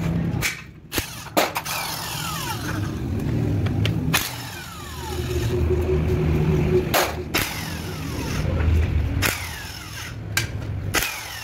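Handheld electric power tool running in several short bursts on the bolts of a truck gearbox casing, its whine falling in pitch as the motor winds down after each burst, with sharp metallic clinks of tools and parts between.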